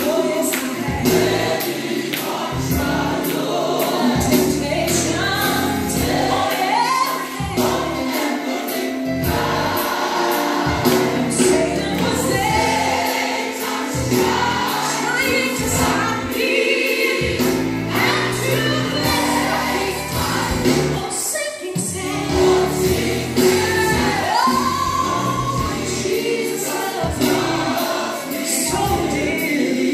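Gospel song with a choir singing.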